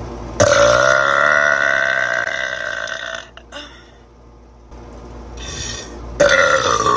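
A woman's long, loud burp lasting nearly three seconds at a steady pitch. A second burp starts near the end and falls in pitch.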